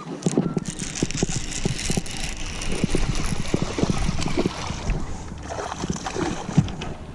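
Wind rushing over the microphone on a fishing boat, with a low rumble and many irregular knocks and thumps on the boat.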